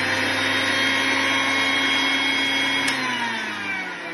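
Electric mixer grinder running, its motor whining steadily as it grinds grated coconut and soaked red chillies with very little water into a smooth paste. About three seconds in, the motor slows and its whine falls in pitch.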